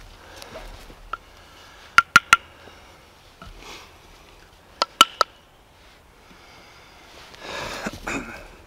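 Wooden pieces of a bow-drill friction fire set knocked together: two quick sets of three sharp, slightly ringing knocks a few seconds apart, then a brief rustle near the end as the fireboard is lifted away.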